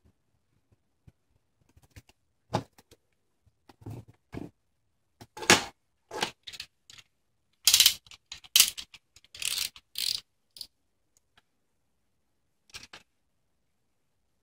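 A shrink-wrapped cardboard box being handled: irregular rustles of the plastic film and knocks as it is turned over and put down on a desk, loudest in the middle. A short cluster of faint clicks comes near the end.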